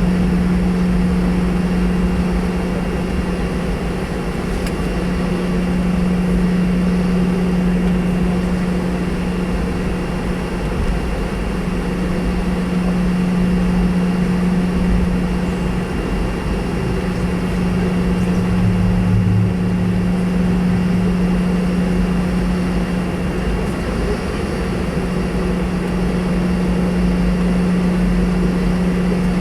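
Cabin noise inside a Boeing 717 from its two rear-mounted Rolls-Royce BR715 turbofans: a steady engine drone with a constant low hum and airflow roar.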